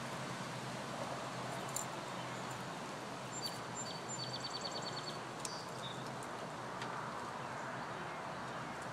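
Steady outdoor background noise, with a bird trilling briefly in the middle: a rapid run of high chips, about eight a second, lasting a second and a half. A few faint clicks are scattered through it.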